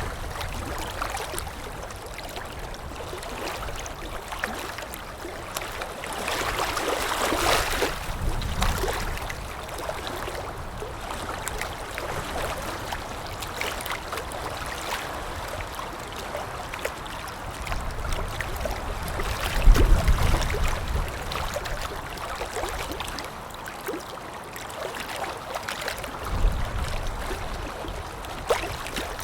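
Wind-driven water lapping against the shore, a continuous wash with small irregular splashes and gurgles. It swells about a quarter of the way in, and a heavier low slosh near the middle is the loudest moment.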